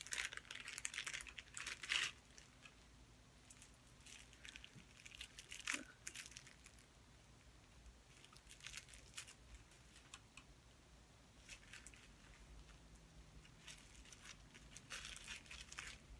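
Plastic packaging crinkling and tearing as it is opened by hand, in several short bursts with quiet gaps between.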